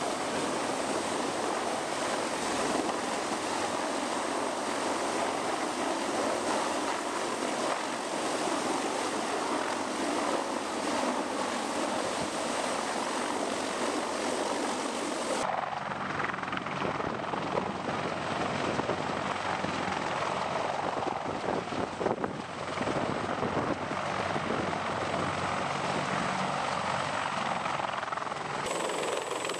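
CH-53E Super Stallion heavy-lift helicopter, its three turbine engines and rotors running steadily in flight with a sling load. The sound turns rougher and more uneven about halfway through.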